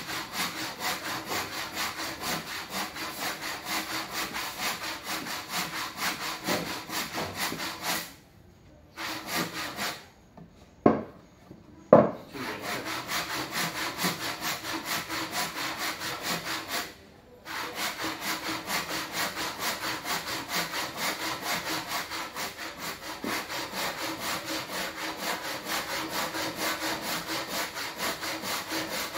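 Hand saw cutting across a square wooden beam in steady back-and-forth strokes, about two a second. The sawing stops about a third of the way in, and two sharp knocks, the loudest sounds, come during that pause. After that it resumes, with one more short break a little past halfway.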